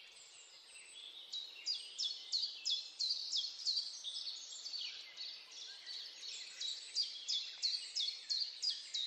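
Birds chirping in a nature-sounds recording: quick runs of short, high, downward-sweeping notes at about three a second, easing off briefly mid-way, over a soft steady hiss.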